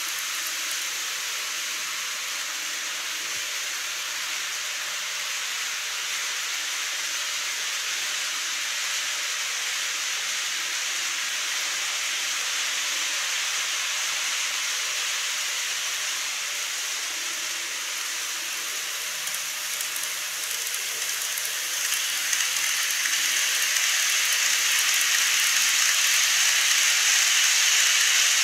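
N-gauge model trains running on the layout's track: a steady hissing rolling noise of wheels and motors on the rails, growing louder about 22 seconds in.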